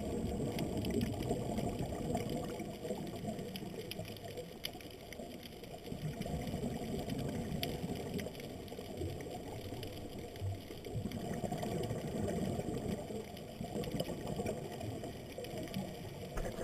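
Underwater sound through a camera's waterproof housing: a low, rushing rumble of scuba exhaust bubbles that swells and fades every few seconds with the diver's breathing, over faint scattered clicks.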